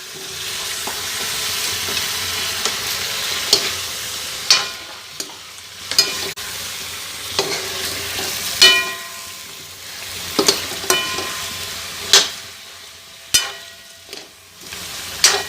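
Chicken and chopped tomatoes sizzling in hot oil in a kadai while being stirred, the spatula scraping and knocking against the pan every second or two, some knocks ringing. The sizzle is strongest in the first few seconds, then eases.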